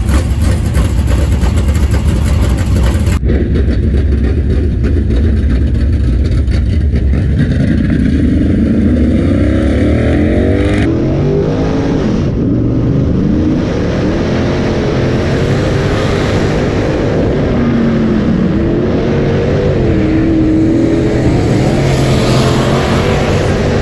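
Dirt late model race car's V8 engine revving up and down as the car laps a dirt oval, its pitch rising and falling again and again.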